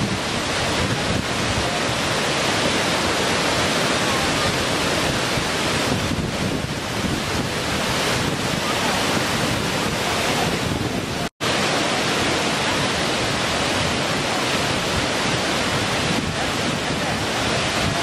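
Waterfall pouring over rock ledges: a steady, even rush of falling water, broken once by a split-second silence about eleven seconds in.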